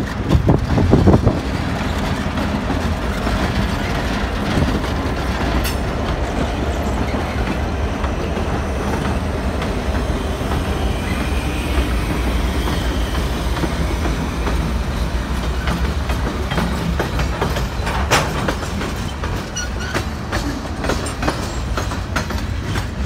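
Freight train passing close by: CN diesel locomotives running, then freight cars rolling past with a steady deep rumble of wheels on rail and clickety-clack. A few sharp clacks come about three-quarters of the way through.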